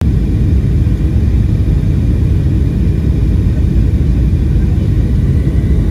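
Steady low rumble of engine and airflow noise inside the cabin of a turbofan airliner on its landing approach.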